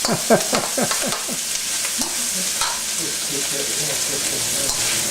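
Spam frying in sesame oil in a hot wok, sizzling steadily while it is stirred.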